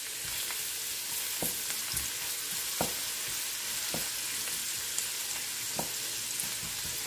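Minced garlic sizzling in hot oil in a wok, stirred with a wooden spoon. A steady hiss runs throughout, with a few light taps as the spoon knocks against the pan.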